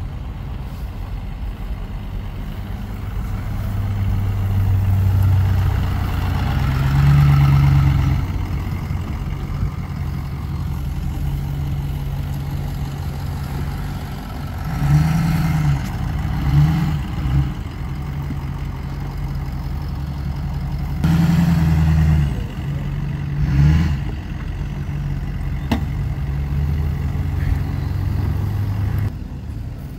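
Ford F-250 Super Duty pickup engine running through its tall exhaust stack. It swells as the truck pulls up, then idles with four short throttle revs in the middle of the stretch.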